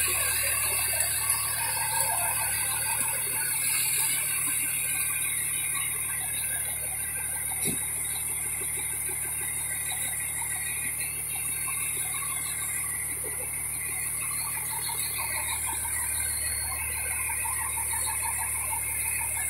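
Diesel fire engine idling steadily, a constant low hum under a steady high hiss.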